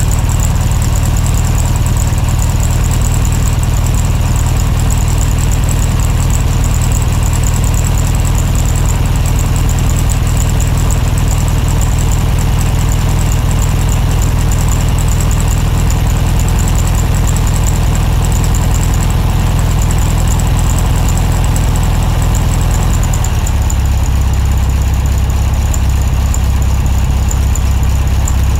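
Vehicle engine idling steadily with a low, even rumble; about 23 seconds in the rumble shifts deeper and stronger.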